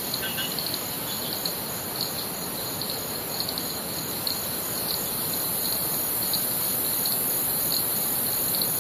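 Tropical forest insects: a steady high-pitched drone with short chirps repeating irregularly, over the even rush of a river.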